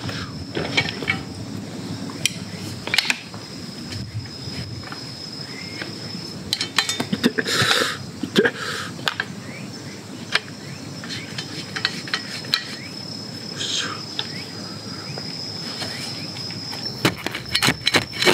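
Metal clicks and clacks of a folding camp shovel being handled and worked open, with a steady high-pitched insect call behind. Near the end the shovel blade starts digging into soft forest soil with a quick run of scrapes.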